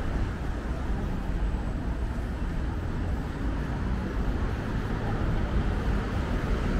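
City street traffic: cars driving past and turning at a junction, a steady rumble of engines and tyres.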